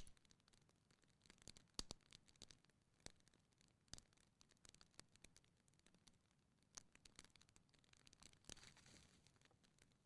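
Wood fire in a fireplace crackling faintly, with irregular sharp pops and a short soft hiss near the end.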